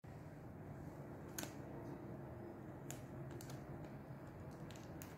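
A handful of small, sharp plastic clicks and taps at irregular intervals, from fingers working an opened power bank's casing and circuit board, over a steady low room hum.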